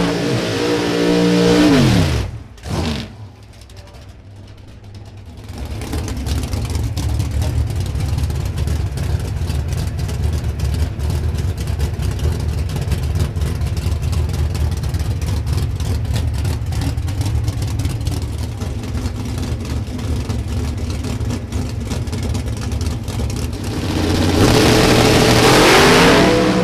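Pro Stock drag-racing engines. The first is an engine note falling away, then after a short lull a long stretch of loud, rough, steady engine rumble. Near the end the engines rev with a rising pitch as a car launches.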